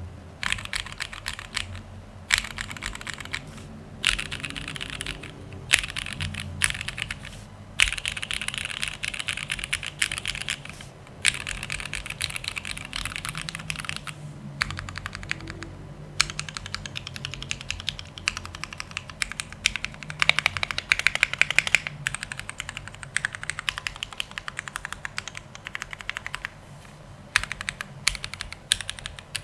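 Mechanical keyboard being typed on: a Mode Sixtyfive with a carbon-fibre plate, lubed and filmed Cherry Nixie switches and GMK keycaps in an aluminium case. Quick runs of keystrokes break off in short pauses every few seconds, with some louder single strikes among them.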